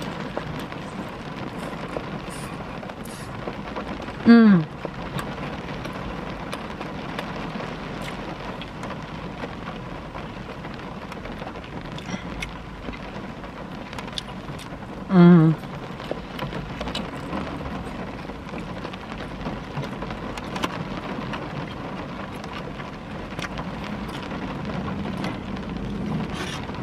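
Steady rain hitting a car's roof and windows, heard from inside the cabin, with small clicks of chewing. Twice, about four and fifteen seconds in, a short falling hum from the eater's voice.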